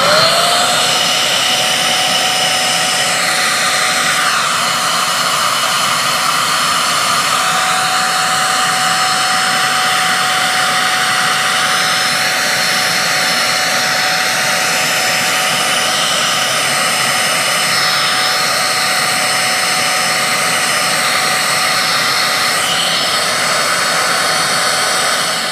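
Handheld vacuum cleaner switched on, its motor spinning up quickly to a steady whine over a rush of air as it sucks lint and dust out of an overlocker's open mechanism, then switched off.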